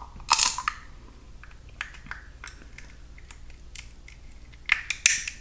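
Eating shellfish: sharp cracks of shell being bitten and pulled apart, with smaller clicks and wet chewing in between. The loudest cracks come about half a second in and again near the end.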